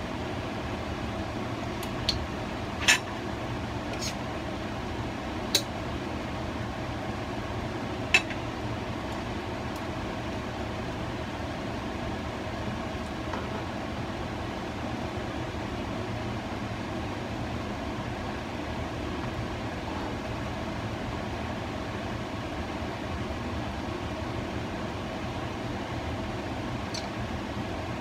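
Countertop air fryer running at 180 degrees: a steady fan hum, with a few sharp clicks and taps in the first eight seconds.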